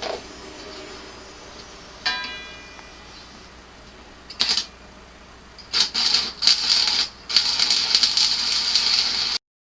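Electric arc welding: a short crackling burst, then two longer stretches of steady arc crackle that stop abruptly near the end. Before the welding, a single metal clank rings briefly about two seconds in.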